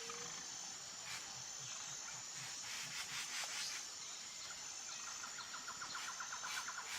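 Outdoor nature ambience: insects trilling steadily on a high note, with a short, fast clicking trill from another insect or bird a little past five seconds in.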